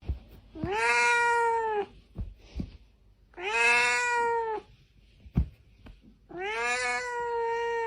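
A cat meowing three times, each a long, drawn-out meow of just over a second that rises at the start and then holds its pitch, with a few faint taps between the calls.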